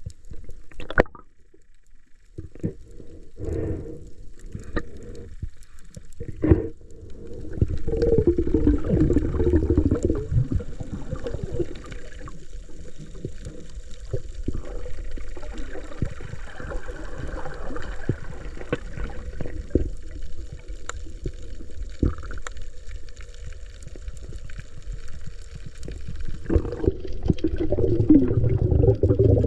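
Water sloshing and gurgling, starting about seven seconds in and swelling again near the end, with a few sharp knocks before it.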